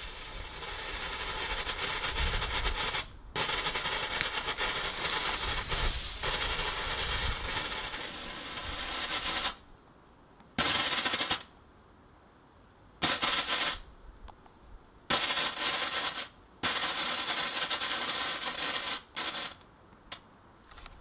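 Small consumer firework going off with a dense, rapid crackle of pops for about nine seconds, with a brief break near the start. It then sputters on in four shorter spurts separated by pauses.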